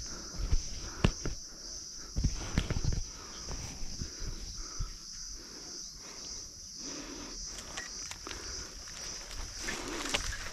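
Insects chirring steadily at a high pitch in the grass, with several low thumps and knocks in the first three seconds.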